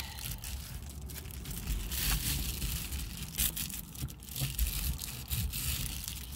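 Crinkling and rustling of Reflectix foil-bubble insulation being handled and pressed into a Jeep Wrangler window, coming and going unevenly, with a low rumble underneath.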